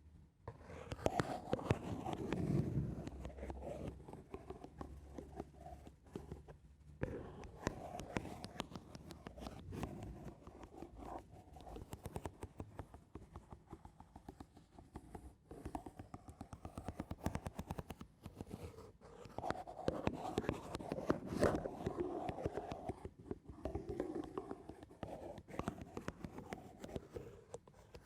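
Slow, gentle ASMR scratching on a surface: a dense crackly texture of fine ticks that swells and fades in waves.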